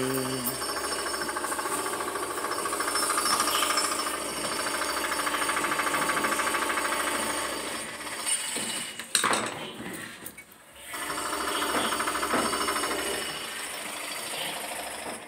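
Clothes dryer running with a loud, fast rattling drone. There is a sharp click about nine seconds in; the noise drops away briefly around ten seconds and then comes back.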